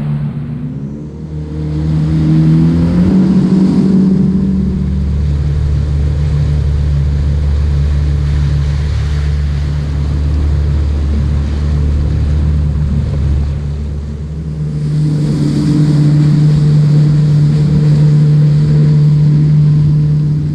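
Yamaha WaveRunner FX Cruiser HO personal watercraft under way, its engine running steadily at speed. The pitch climbs as the throttle opens about two seconds in, dips briefly around fourteen seconds, then picks up again.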